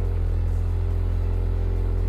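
2017 Ford Focus ST's 2.0-litre turbocharged four-cylinder running steadily at idle through its stock factory exhaust, a deep even drone.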